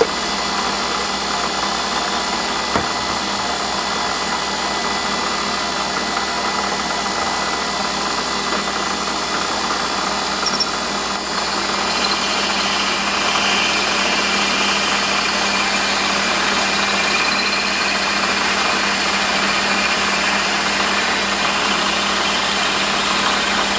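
A Warco metal lathe running while a 7 mm twist drill is fed into the turning workpiece, a steady machine hum with cutting noise. The drill is deep in the hole and close to breaking through. About halfway through, the cut gets a little louder and hissier.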